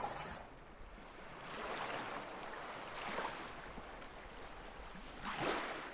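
Small waves washing in, swelling and fading three times, loudest near the end.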